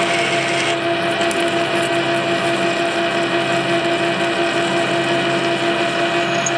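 Metal lathe running with a steady hum while a twist drill fed from the tailstock bores into the end of a spinning steel hydraulic-cylinder rod. A higher hiss drops out about a second in.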